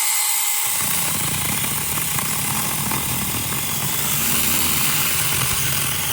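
Battery-powered mini chainsaw running with a steady high motor whine, then biting into a dead tree stump about a second in and cutting steadily through the wood with a rough, grinding sound.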